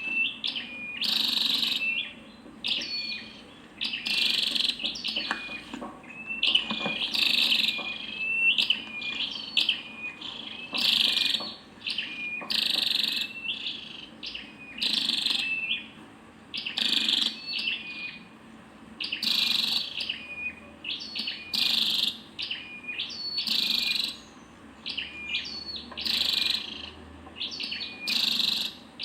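Female flowerpecker calling: short, high chirps repeated about once every second or two.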